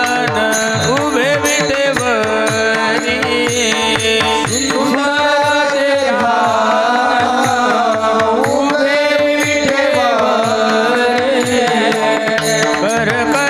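Marathi devotional kirtan music: a voice sings long, ornamented notes that slide between pitches over a steady drone. Rapid hand-drum strokes play throughout, their low bass notes sliding downward.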